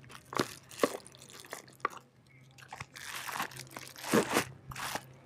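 Plastic wrapping and a cardboard box being handled and opened: a few sharp crackles in the first two seconds, then longer crinkling rustles.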